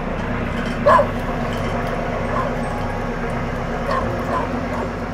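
A dog barking: one loud bark about a second in, then a few fainter ones, over the steady low drone of the fishing vessel's engines.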